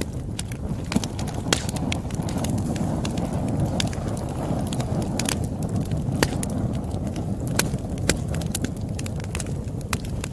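Campfire crackling: a steady low rumble of burning wood with irregular sharp pops and snaps, the loudest about one and a half, six and eight seconds in.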